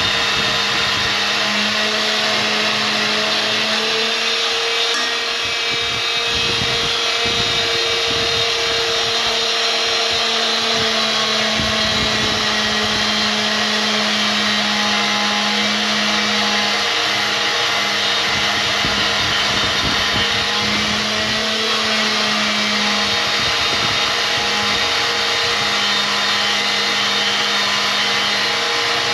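Vertical band saw running steadily while its blade cuts along a long metal bar, giving a continuous hum with a steady whine.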